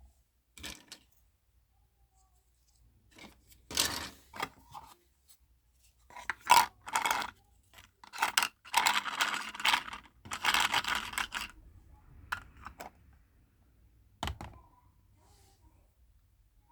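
Hands unboxing small kitchen-set pieces: scattered clicks and clatters of small objects, with a longer stretch of rustling and scraping packaging in the middle.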